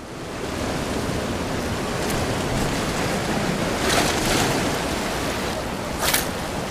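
Ocean surf washing on the shore: a steady rush, briefly louder about four and six seconds in.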